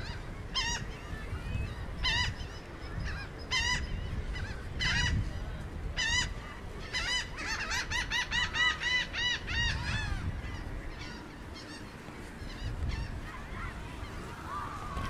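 A gull calling over the beach: single honking calls every second or so, then a fast run of calls about halfway through, fainter calls toward the end.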